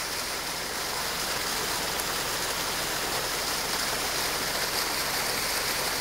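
Steady rush of water from a small roadside waterfall, an even hiss with no breaks.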